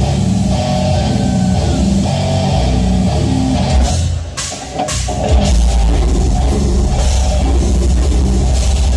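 Heavy metal band playing loud amplified music, with distorted electric guitars and a drum kit. About four seconds in the music drops out briefly, then comes back in heavier, with a thick, pounding low end.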